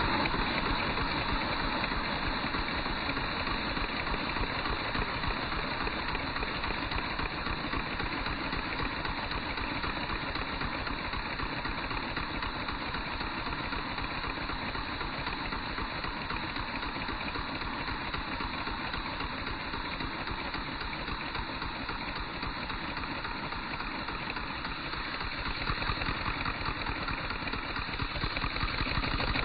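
LEGO vacuum engine with transparent cylinders running: a fast, even clatter of plastic parts over a steady hiss, growing louder near the end.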